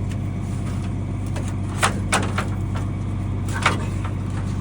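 Steady engine idling close by, with a few sharp knocks or clanks, twice in quick succession about two seconds in and once more near the end.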